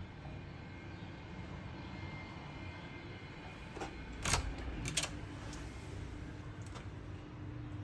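Steady low hum with a faint click and then two sharp clacks about four and five seconds in, made by the suite door's handle and latch as the door is opened.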